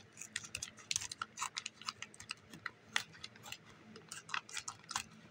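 Scissors snipping through a foil-lined Calbee Shrimp Chips bag while it crinkles. The sound is a dense run of short, irregular crackles and snips, several a second.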